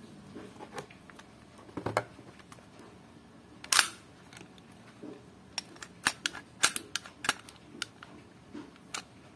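Sharp clicks and knocks from handling a WE Glock 18C airsoft pistol and its magazine over the box's pulp tray: a loud knock about four seconds in as the magazine is set down, then a quick run of clicks in the second half while the pistol is handled.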